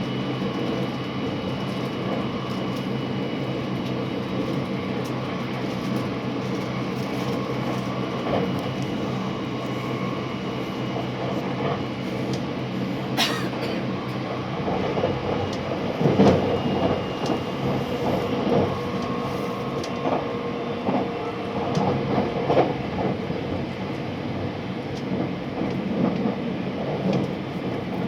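Cabin noise of a JR West 683 series electric limited express train running: a steady rumble with faint steady tones. There is a sharp click about halfway through and a few louder thumps and clatters in the second half.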